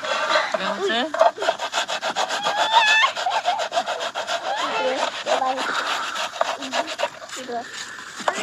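Tomato rubbed back and forth over a hand-held metal grater into a pot: a quick, even run of rasping strokes.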